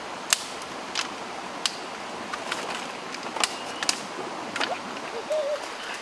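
Steady rush of a rocky forest stream, with scattered sharp clicks every second or so.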